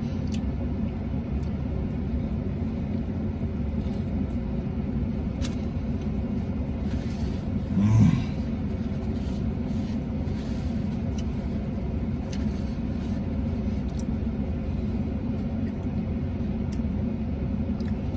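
Steady low rumble and hum of a vehicle's idling engine and running air conditioning, heard inside the cab. A brief murmur from a voice comes about eight seconds in.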